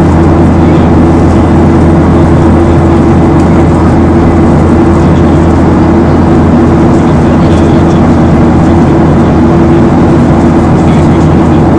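Loud, steady cabin noise of a Boeing 737-800 in flight: the drone of its CFM56-7 turbofan engines, with a low hum and a few steady tones, under rushing air.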